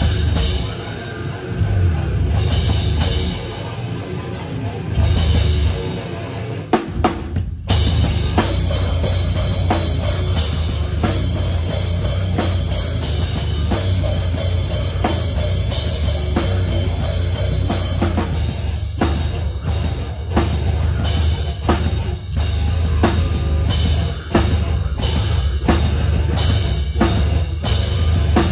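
Live rock band playing, the drum kit loudest: stop-start accented hits with bass and cymbal crashes for the first seven seconds or so, a brief cut-off, then the full band comes back in and drives on steadily with bass drum and cymbals.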